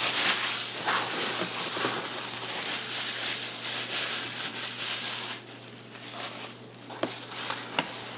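Packaging rustling and crinkling as hands dig through a box of padlocks, quieter after about five seconds, with a few light clicks near the end.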